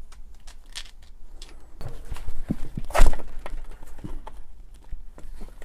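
Hand work on the metal parts of a power-tool housing during disassembly: scattered clicks, taps and knocks, with the loudest knock about three seconds in.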